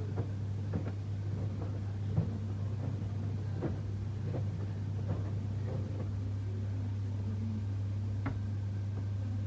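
Samsung washing machine running: a steady low hum with scattered light knocks and clicks.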